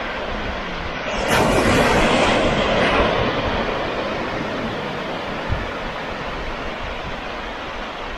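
Ocean surf on a rocky shore with wind, a steady rush that swells loudly about a second in as a wave breaks, then slowly fades as the water washes back.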